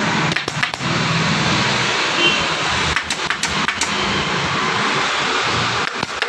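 Pneumatic staple gun firing staples into black leatherette upholstery, a few sharp shots spaced through, over a steady mechanical hum.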